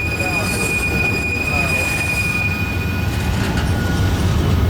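Freight train cars rolling past with a steady low rumble and a high-pitched wheel squeal. The squeal holds for about three seconds and then fades.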